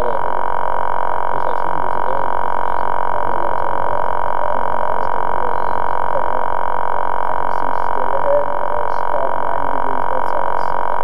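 Multirotor drone helicopter sitting on the ground with its motors running, giving a loud, steady high whine that does not change pitch.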